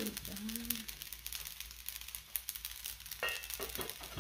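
Cooked rice frying in hot oil in a black skillet, sizzling and crackling steadily, with a brief ringing tone about three seconds in.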